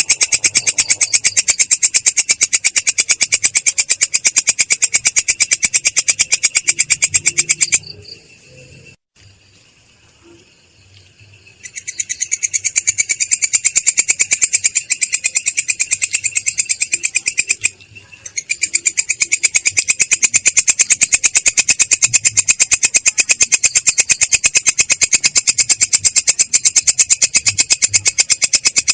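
High, harsh animal trill of very rapid, even pulses, in long runs that break off about eight seconds in for a few seconds and again briefly about eighteen seconds in.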